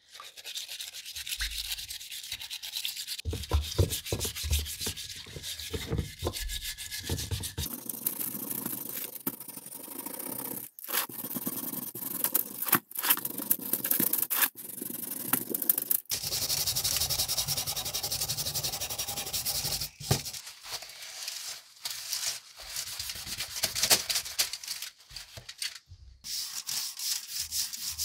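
Plastic scraper scraping old paint and grime off the end bell and housing of a 1953 Delta Homecraft drill press motor, in repeated rasping strokes. The sound comes as several separate takes with abrupt cuts between them.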